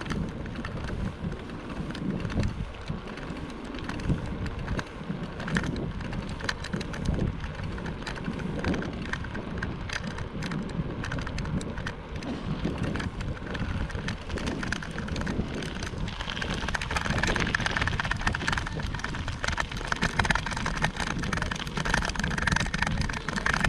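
Bicycle riding on a rough trail: a steady rumble of wind on the microphone and tyres, with many small rattles and clicks. From about two-thirds of the way through, a louder hiss joins in.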